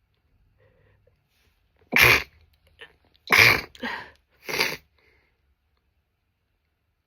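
A woman sneezing in a quick run of about four explosive bursts, the first two the loudest.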